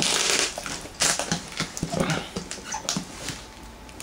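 Packing tape ripping and cardboard flaps being pulled and scraped as a taped cardboard box is forced open: a long tearing hiss at the start, another about a second in, then scattered rustles and clicks.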